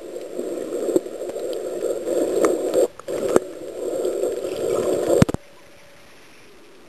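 Muffled underwater churning and bubbling from swimmers kicking nearby, as heard by a camera underwater, with a few scattered clicks. It cuts off abruptly about five seconds in, leaving only a low hiss.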